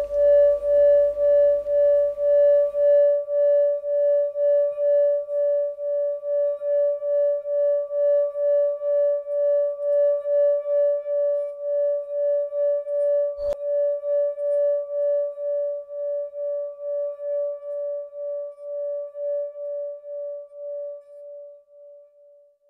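A singing bowl ringing on one steady tone with fainter overtones above it, pulsing with a regular waver and slowly fading away near the end. A low hum and softer tones underneath stop about three seconds in, and a brief click sounds about halfway through.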